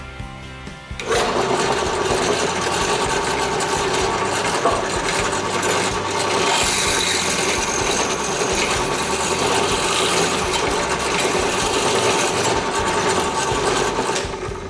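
A motor-driven machine or power tool runs steadily for about thirteen seconds, starting and stopping abruptly, over background music.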